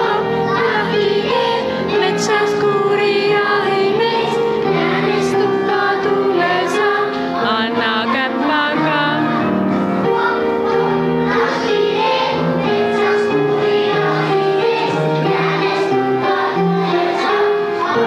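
A group of young children singing a song together over instrumental music.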